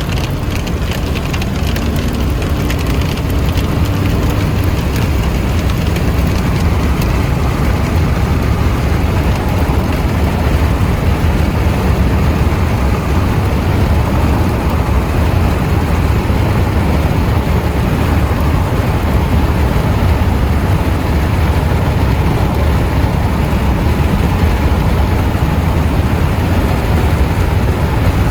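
Steady low rumble of a vehicle on the move, with road and wind noise, growing a little louder over the first few seconds and then holding.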